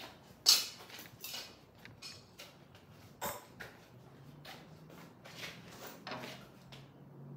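Scattered knocks and light clatter of handling in a metal workshop, with a sharp knock about half a second in and another about three seconds in, over a faint steady low hum.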